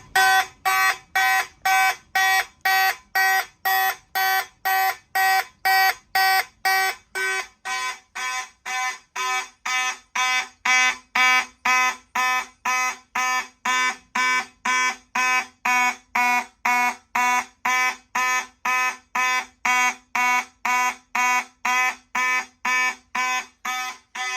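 Fire alarm horns sounding in march time, about two blasts a second (120 beats per minute), after a manual pull station has been pulled.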